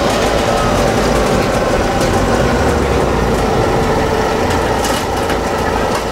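Pickup truck engine running steadily, with no change in revs, as the stuck truck is pulled out of deep mud by a winch line.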